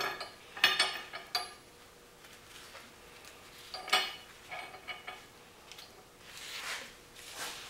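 Small steel parts (washers, a nut and a drill bit used as a spacer) clinking against a steel welding table as gloved hands set them in place: a handful of sharp separate clinks, then softer rustling of leather gloves on the metal near the end.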